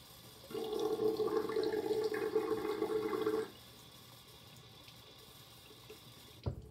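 Bathroom tap running into a container being filled with water for about three seconds, starting and stopping abruptly as the tap is turned on and off. A single short knock near the end.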